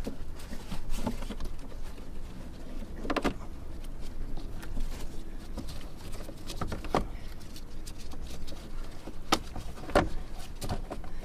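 Plastic airbox being worked back into place in a car's engine bay: scattered clicks and knocks of plastic parts being pushed and seated, over a steady low rumble.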